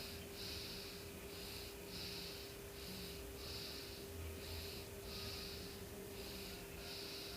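A cat breathing close to the microphone in an even rhythm, a short breath in and a longer breath out about every second and a half. A steady faint hum runs underneath.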